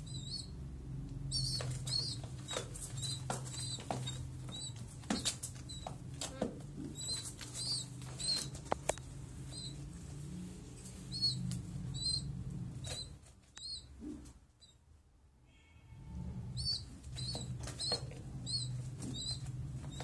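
Young pigeons in the nest squeaking in short, high peeps again and again, with fluttering wings. The peeps stop for a couple of seconds near the middle, then resume. A steady low hum runs underneath.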